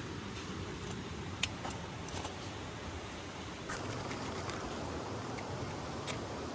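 Steady rain falling, a constant hiss and patter, with a few sharp drop taps scattered through it.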